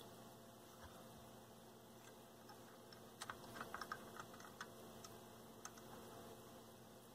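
Near silence with a short run of faint small clicks and taps, about three to four and a half seconds in, and one more a second later: fingers handling and pressing on a subwoofer amplifier's circuit board.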